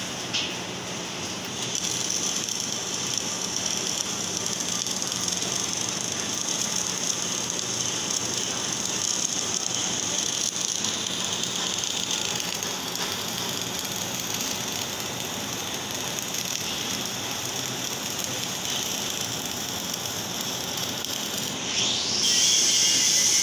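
MIG welding arc laying a bead along a steel beam seam: a steady crackling hiss that grows louder near the end.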